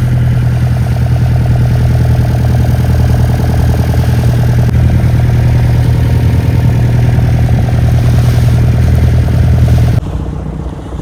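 Boat engine running loud and steady at a constant pitch, falling away suddenly near the end.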